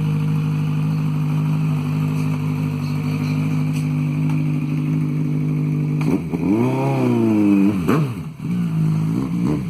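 Kawasaki Z1000's inline-four engine idling steadily through a full stainless-steel 4-into-1-into-2 exhaust, then revved once about six seconds in, the pitch rising and falling back over about two seconds, with a second, smaller blip near the end.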